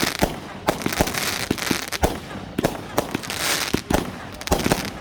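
Fireworks going off: a rapid, irregular string of sharp bangs with crackling hiss between them.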